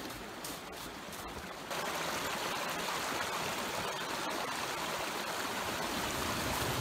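Steady rushing of a flowing creek, coming in suddenly about two seconds in and running on evenly; before it, only a few faint clicks over quiet background.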